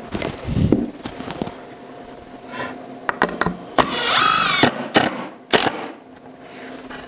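Wooden boards knocked and shifted into place, then a Makita cordless drill runs for about a second, drilling a hole through the pine board, followed by two sharp knocks.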